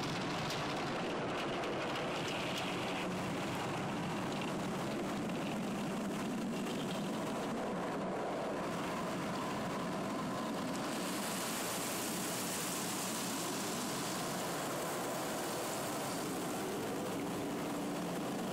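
Automatic car wash heard from inside the car's cabin: a steady rush of water spray and machinery on the body. About halfway through, a louder, higher hiss joins in and stays.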